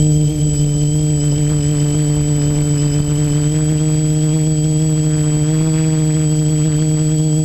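Multirotor drone's electric motors and propellers buzzing in a steady hum, picked up by the camera on board. The pitch holds nearly level and rises slightly about two thirds of the way through.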